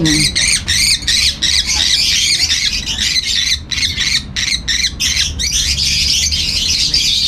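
African lovebirds squawking and chattering: a dense stream of shrill, rapid calls that thins briefly around the middle.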